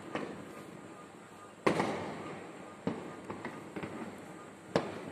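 Fireworks exploding: a loud bang about a second and a half in, further bangs near three and near five seconds, with smaller pops between, each bang echoing as it fades.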